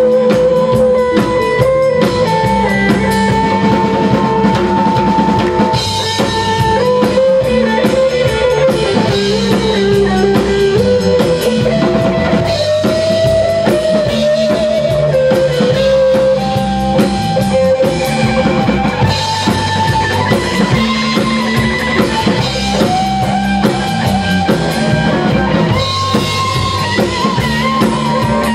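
Rock band playing live: two electric guitars and a drum kit, with one guitar holding long, bending melody notes over the drums and rhythm guitar, and no singing.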